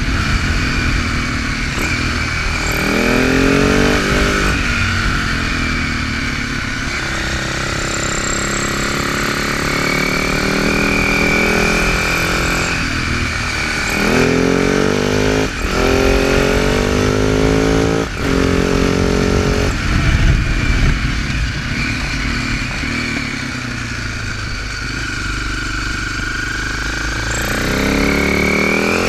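Husaberg FS650 single-cylinder four-stroke engine running under way. It rises in pitch as it accelerates three times, with brief breaks at gear changes and steadier stretches on lighter throttle in between.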